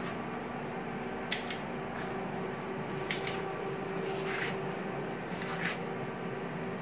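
Steady machine hum with several fixed pitches, broken by a few faint clicks and short rustles.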